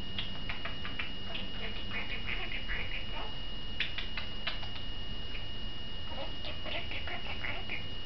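Pet budgie chattering and chirping in short bursts, with a cluster of sharp clicks about four seconds in.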